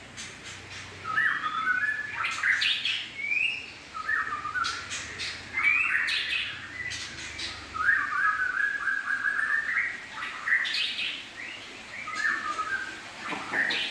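Birds chirping and calling in short, squawky phrases every second or two, with one longer run of chirps past the middle.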